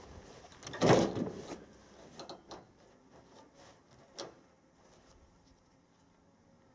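.300 Winchester Magnum rifle firing a single shot about a second in, with a decaying tail. A fainter sharp clank follows about three seconds later.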